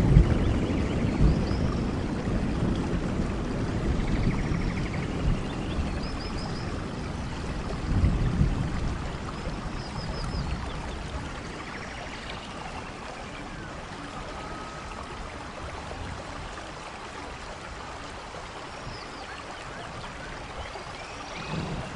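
Steady hiss of rain and falling water, with low rolls of thunder that fade away over the first half. Birds chirp and trill now and then.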